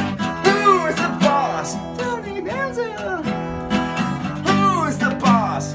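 Acoustic guitar strummed on a two-chord progression of G and E, with a man singing over it, his voice sliding up and down in pitch.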